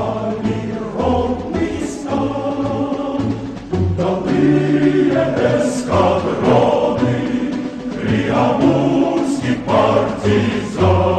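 Music with a choir singing over a steady, pulsing bass beat.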